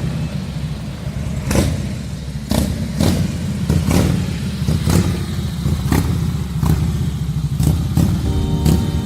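Harley-Davidson V-twin engine running through a 2-into-1 performance exhaust, a steady deep low rumble crossed by sharp cracks at uneven intervals, about one a second. Music comes in near the end.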